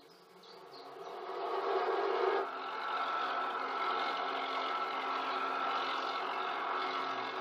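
Tractor engine running steadily as the tractor drives across a rough field, a buzzing drone that fades in over the first two seconds and then holds level. It is heard through a television's speaker.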